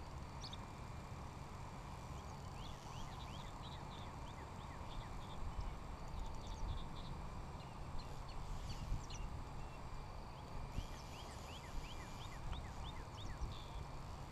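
Rapid series of short, rising chirps from a calling animal, in two runs, the first about three seconds in and the second about eleven seconds in, over a low steady rumble.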